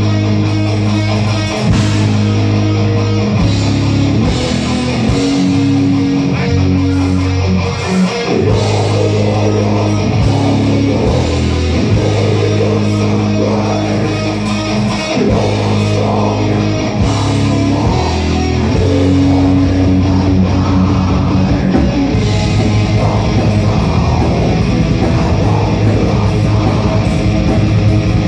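Live metal band playing loud: distorted electric guitars, bass guitar and drum kit, turning to a denser, faster-driving passage about two-thirds of the way through.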